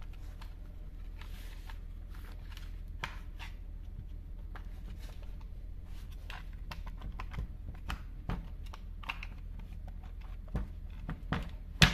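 Scattered clicks and knocks of hard plastic as an electric drill's clamshell housing is pried open with a screwdriver and handled, coming thicker and louder in the second half, over a steady low hum.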